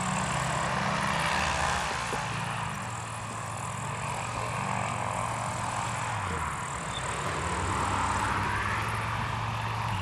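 Small propeller airplane's engine running steadily, its drone shifting pitch briefly about six and a half seconds in.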